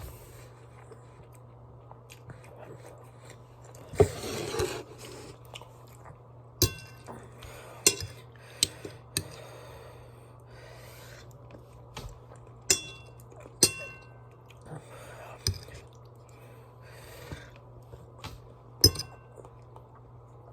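Utensil clinking and scraping against a dish while eating, about ten sharp clinks that ring briefly, with a longer scrape about four seconds in, between quiet chewing. A steady low hum lies underneath.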